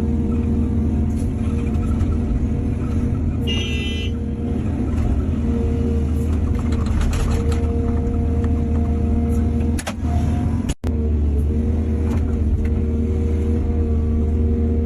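Excavator's diesel engine running steadily under load, with a brief high squeal about four seconds in and a short break in the sound near the end.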